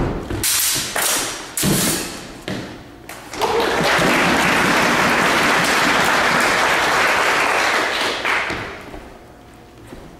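A quick run of sharp knocks and clashes from two fencers exchanging with heavy dueling sabres. Then the audience applauds for about five seconds, the applause fading out near the end.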